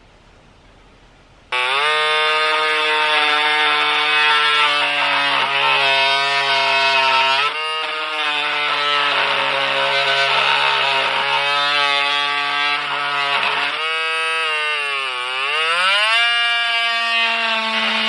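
Parkside 12 V cordless oscillating multi-tool with a saw blade cutting into a wooden beam: a loud buzzing whine that starts about a second and a half in. It dips briefly about halfway, sags in pitch under load and then settles at a higher, steady tone near the end.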